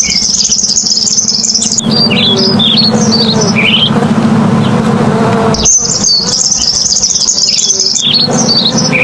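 Purple sunbird singing: a rapid, high twittering trill, then a string of short falling notes, the phrase given twice. A steady low buzz runs underneath.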